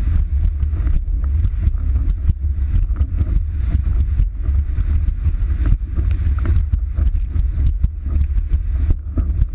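Strong wind rumbling and buffeting on a rig-mounted action camera's microphone while windsurfing at speed, with water splashing and slapping under the board.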